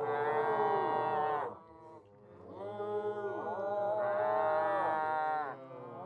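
A person's voice making two long, low drawn-out moo-like calls, the second longer, with the pitch sliding within each.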